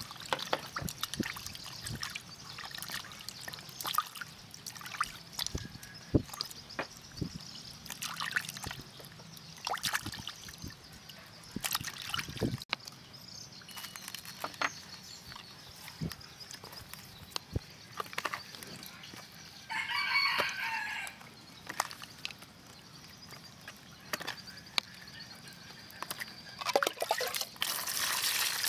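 Water splashing and dripping in a plastic basin as live eels are handled and scrubbed with salt. A rooster crows once, about two-thirds of the way through. Water is poured into the basin near the end.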